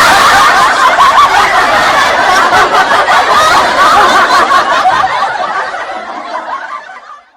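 Laughter sound effect: a loud, sustained burst of laughing that fades away over its last two seconds and stops near the end.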